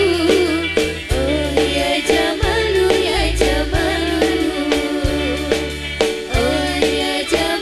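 Live band music with a woman singing: a wavering, ornamented melody over bass notes and regular drum strikes.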